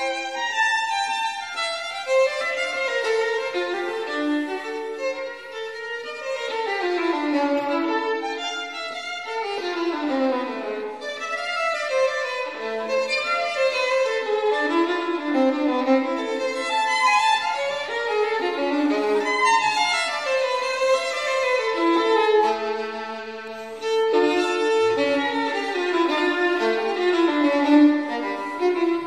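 Background music led by violin, playing flowing melodic runs that often fall in pitch.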